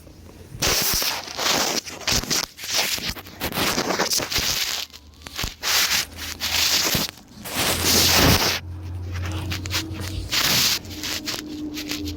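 A person's wheezing breathing, heard close up: a run of rough, noisy breaths at an uneven pace, with a faint thin whistling tone under them in the last few seconds.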